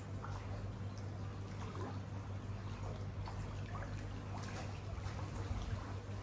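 Pool water gently splashing and lapping as a swimmer moves through it, with small irregular splashes over a steady low hum.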